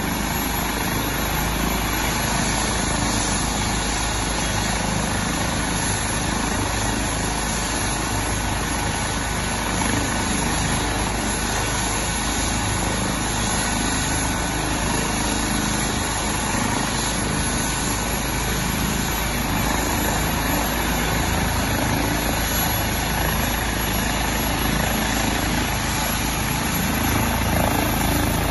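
Airbus H135 helicopter running on the ground with its main rotor turning. Its twin Pratt & Whitney PW206B3 turboshafts give a steady turbine whine over the rotor noise. The sound grows louder near the end as it works up toward take-off.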